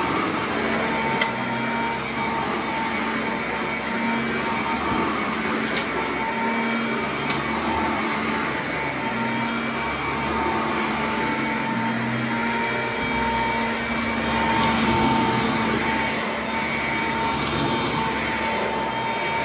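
Sanitaire commercial upright vacuum running steadily as it is pushed over carpet: a constant motor whine over airflow hiss, with a few sharp ticks.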